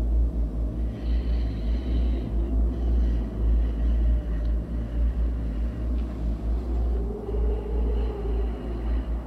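Ambient cinematic composition: a deep, heavy low drone that swells and pulses unevenly, with faint thin high tones drifting in and out above it.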